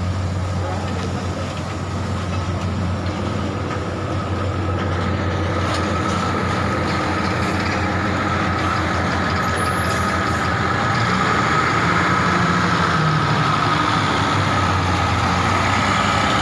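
Diesel engine of a large intercity coach bus running close by, a steady low hum with a higher whine over it, growing louder about two-thirds of the way through.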